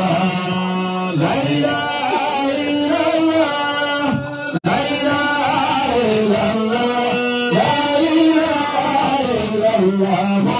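Music with a voice singing a melodic chant over instrumental backing, with long held notes that step and slide between pitches. The sound cuts out for an instant about halfway through.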